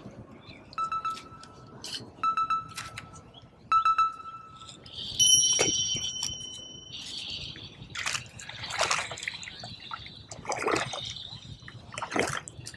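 A small panfish being brought in on ultralight spinning tackle. Three short pitched buzzes come about a second and a half apart, then a longer, higher one, followed by splashing water and the noise of handling.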